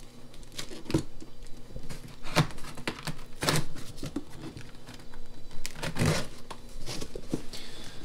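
Packaging from a pump's box being handled: irregular rustling and crinkling, with several louder crackles a second or more apart.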